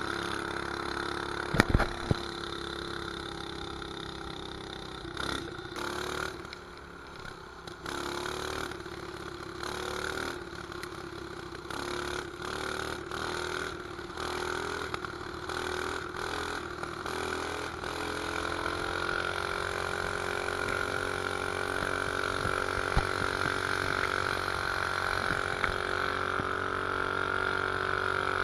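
Mini bike's 212cc single-cylinder four-stroke engine running under way through a pipe with a screw-on muffler. The engine note comes and goes in short surges through the middle, then holds steadier and louder, with the pitch swinging up and back near the end. A few sharp knocks sound about two seconds in.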